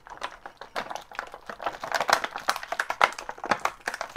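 Clear plastic bag crinkling and crackling in quick, irregular clicks as an action figure is worked out of it by hand.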